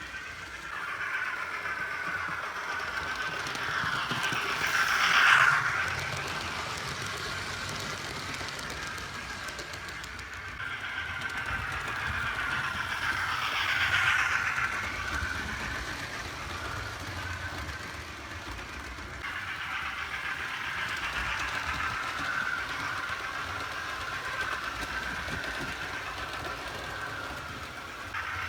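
Hornby OO gauge Class A2/3 model steam locomotive with a TTS sound decoder running on the track. It gets louder as it passes close, about five and fourteen seconds in, and fades as it moves away.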